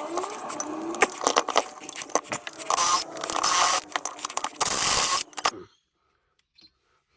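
Metal scraping and clinking with quick knocks as parts of a car's wheel hub are worked on by hand. It cuts off suddenly about five and a half seconds in.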